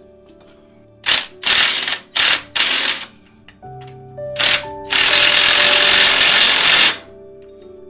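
Cordless impact wrench with a socket running on a bolt of the loader frame, hammering in several short bursts and then in one longer run of about two seconds, over background music.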